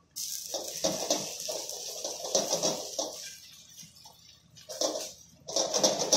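Noodles frying in hot oil in a wok, a steady sizzle that starts suddenly, with a spatula scraping and knocking against the wok in repeated strokes as the noodle cake is pushed around.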